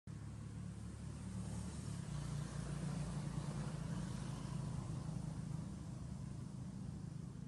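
A steady low rumble like a motor vehicle's engine, swelling a little in the middle and easing off near the end.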